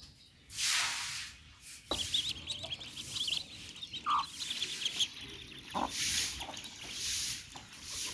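Ducklings peeping in a fast run of short high calls while they crowd round and peck feed, with a few lower single calls among them.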